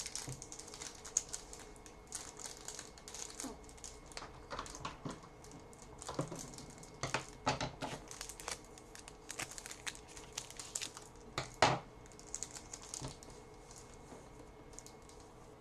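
Trading card pack wrapper being torn open and crinkled, with cards clicking and sliding as they are handled: irregular crackles and taps, the loudest a sharp one about twelve seconds in.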